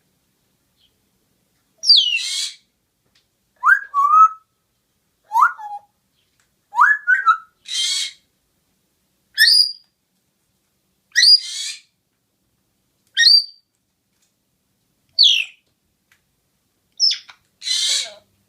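A pet bird giving short squawks and whistled chirps, interleaved with four noisy, cough-like bursts, one call every second or two.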